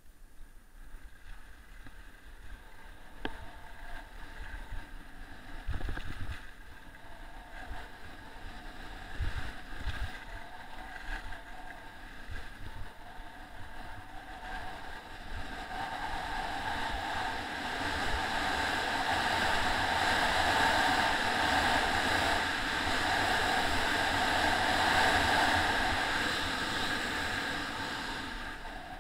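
Wind rushing over the camera microphone together with the scrape of sliding fast over packed snow while going down a ski slope, with a few knocks early on; the rushing builds from about halfway and is loudest near the end, easing off at the close.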